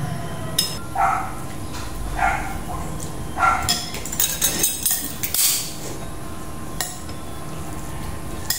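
Spoons and forks clinking against ceramic plates and bowls during a meal, with a cluster of clinks near the middle. A dog barks a few times in the background in the first half.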